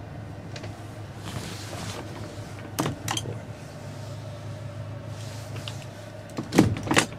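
Motorboat engine idling with a steady low hum, with a few sharp knocks about three seconds in and two louder ones near the end.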